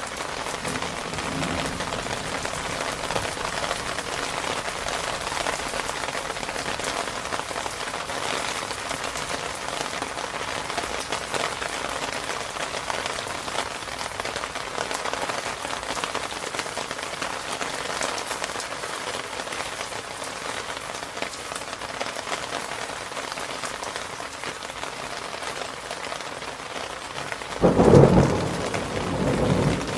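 Steady rain falling, with a loud rumble of thunder near the end that dies away in a second, weaker roll.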